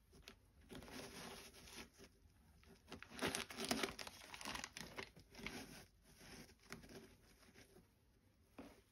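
Clear plastic crinkling and rustling in cotton-gloved hands as they handle a new sneaker. It comes in irregular bursts, loudest about three to four seconds in, with one last short rustle near the end.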